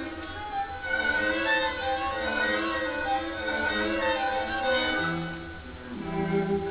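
Background music of bowed strings: a slow violin melody over sustained lower string notes, with a deeper cello-like line growing stronger near the end.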